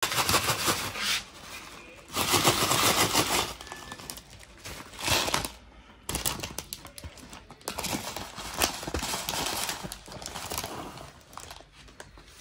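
Foil-lined plastic instant-noodle packet crinkling and crackling as it is handled and a piece of the dry noodle block is broken off. The crackling comes in several bursts, the longest in the second half.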